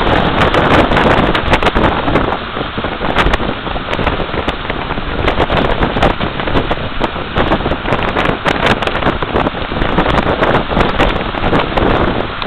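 Strong storm wind buffeting the microphone over a constant rush of breaking surf, with frequent crackles; loudest in the first two seconds.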